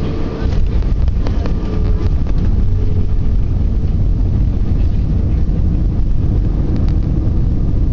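Loud, steady low rumble in the cabin of an Airbus A320 airliner racing down the runway on landing, with engine and wheel noise growing a little louder about half a second in. A few light rattles sound over it.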